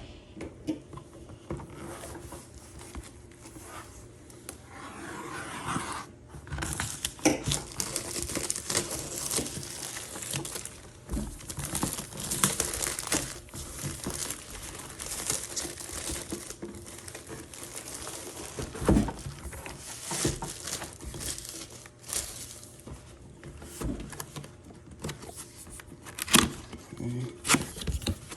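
Cardboard shipping box being opened and unpacked by hand: crinkling and tearing of packaging, with rubbing and scattered knocks. It is fairly quiet for the first few seconds, then busy and scratchy.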